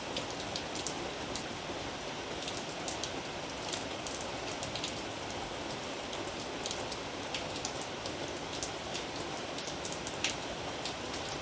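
Steady rain, an even hiss with scattered light ticks.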